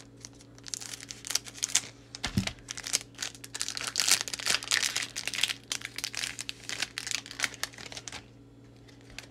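Foil wrapper of a Japanese Pokémon card booster pack crinkling and crackling as it is picked and torn open by hand. The crackles come in quick irregular runs, thickest in the middle, and stop about eight seconds in.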